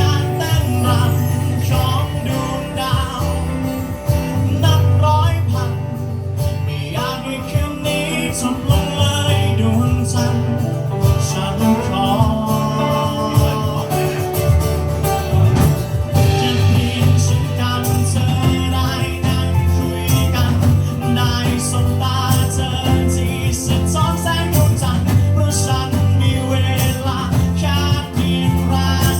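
A live band playing a song with a singer, over a steady bass line and percussion.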